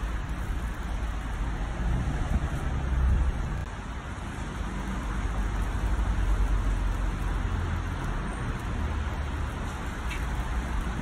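Steady outdoor rumble with a hiss over it, mostly low and noisy, swelling a little around three seconds in and again around six seconds.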